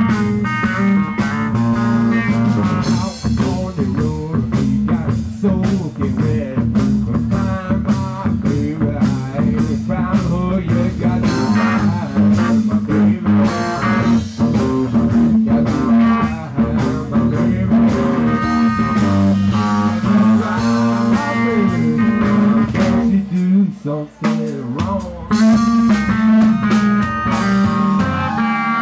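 Live hill country blues-rock band playing: an electric guitar lead over a steady low drone and a drum kit. The band thins out briefly about five seconds before the end, then comes back in.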